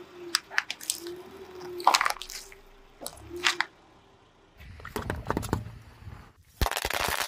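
A car tyre rolls over and crushes thin plastic food tubs: sharp plastic cracks and wet, squelching food. Near the end comes a dense, loud burst of crushing and splattering.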